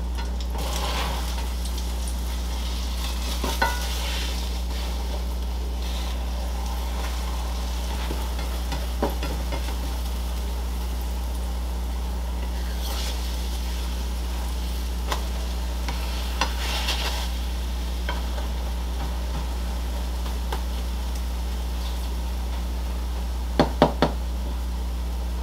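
Egg and spinach batter sizzling in hot oil in a frying pan, with a spatula scraping the pan now and then and a few sharp taps near the end as the crepe is lifted. A steady low hum runs underneath.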